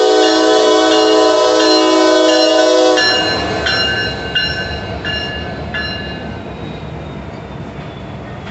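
Norfolk Southern diesel locomotives' multi-chime air horn sounds one long steady chord that cuts off about three seconds in. After that the locomotives rumble past on the rails, slowly fading, while a grade-crossing bell dings a few times.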